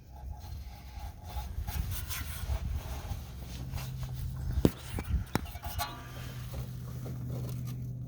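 Handling and rubbing noises of hands and tools working the fuel filter and its shield loose under the vehicle, with two sharp clicks a little past halfway and a steady low hum from about halfway on.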